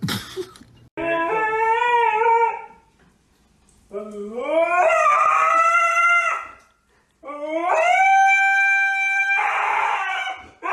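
A husky howling: three long howls, each sliding up in pitch and then holding. The last one breaks into a rougher, noisy call near the end.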